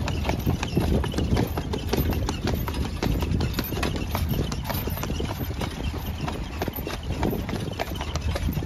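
Carriage horse's hooves clip-clopping on an asphalt road as it pulls the carriage, a quick run of sharp knocks throughout over a steady low rumble.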